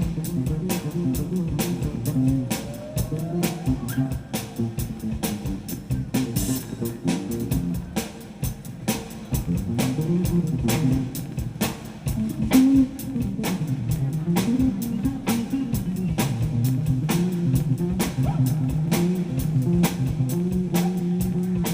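Rock band playing: guitar and bass lines over a steady drum beat.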